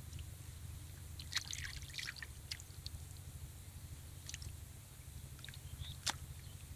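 Faint scattered wet ticks and squishes, a small cluster about a second in and single ones later, from small live fish flipping in a mesh net on wet mud. A low steady hum runs underneath.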